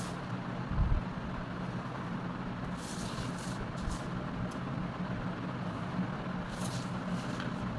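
A steady low background hum with a short thump about a second in, and a few brief scratching strokes of lines being drawn on the pattern.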